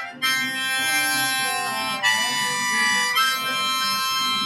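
Harmonica playing long held chords, changing about two seconds in and again about a second later.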